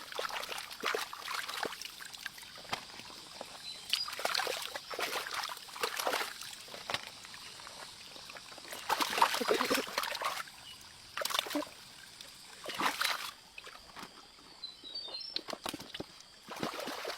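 Water splashing and sloshing in irregular bursts, with trickling in between.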